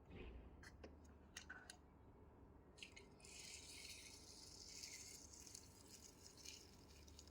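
Faint handling sounds: a few light clicks, then a soft rattling for about three seconds.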